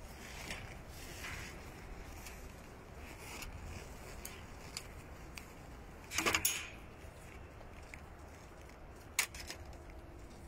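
Light handling noises of gear being adjusted: scattered clicks and rustles over a low wind rumble, with a louder brief rustle about six seconds in and a sharp click about nine seconds in.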